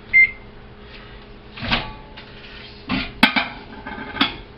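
Microwave keypad beeping once as the defrost weight is entered, followed by several sharp knocks and clatters of kitchen handling.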